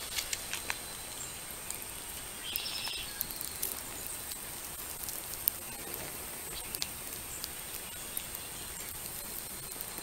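Faint, scattered crackles and ticks over a steady hiss from a flexible foil dryer vent duct burning at its open end; the shiny duct is plastic and is itself on fire.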